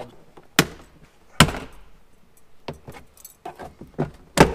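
Plastic trim clips snapping loose as the subwoofer enclosure panel is pulled off a Jeep Wrangler JL's cargo-area wall: a series of about six sharp snaps and knocks, the loudest about a second and a half in.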